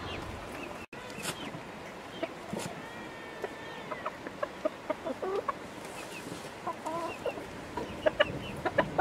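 Chickens (hens and roosters) clucking with many short calls while feeding, with a few sharp clicks near the end.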